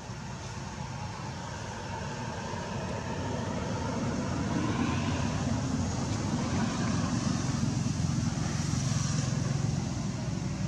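A steady low rumble with a hiss above it, growing louder about four seconds in and easing near the end.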